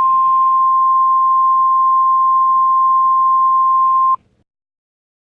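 Emergency Alert System attention tone: a single loud, steady high-pitched tone that cuts off suddenly about four seconds in, followed by silence. It is the alert signal that comes before a spoken weather warning.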